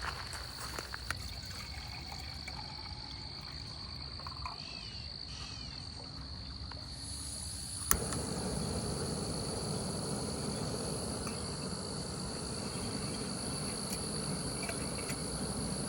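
Steady high-pitched chorus of insects, with a second, higher insect tone joining about halfway. About halfway a sharp click, after which a louder low background noise rises under the chorus.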